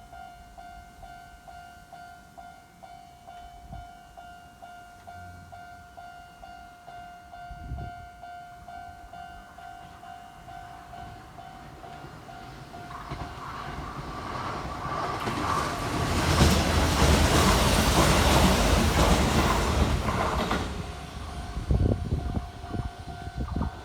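Level-crossing warning bell ringing steadily as an electric train approaches and runs through the crossing. The train's noise builds from about halfway, is loudest for several seconds, then fades. The bell stops near the end.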